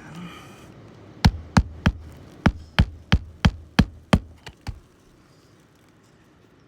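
Hammer driving roofing nails: about a dozen sharp blows in quick succession, roughly three a second, stopping about five seconds in.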